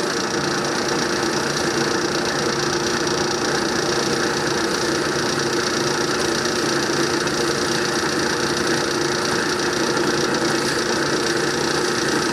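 Drill press running steadily as its bit bores slowly into a turned wooden handle, held freehand on the table.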